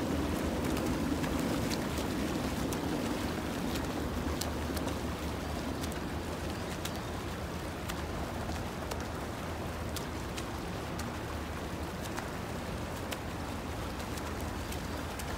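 Water splashing from swimmers doing freestyle, arm strokes and kicks churning the pool surface, over a steady low rumble.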